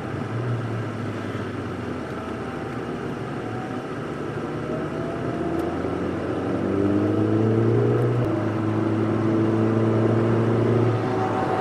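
Ford Fiesta ST's turbocharged 1.6-litre four-cylinder engine heard inside the cabin over a steady drone of road noise. From about halfway the engine note climbs under acceleration, breaks briefly about eight seconds in, holds, then drops away near the end.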